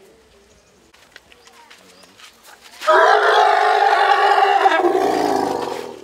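Young Asian elephant calling loudly for about three seconds. The call starts abruptly about three seconds in, then falls lower in pitch and fades near the end. It is a distress call from a wounded calf being held by a rope on its leg.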